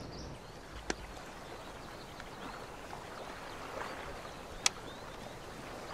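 A plastic CD case being handled, with a sharp click about two-thirds in and a smaller one about a second in, over faint steady outdoor background noise.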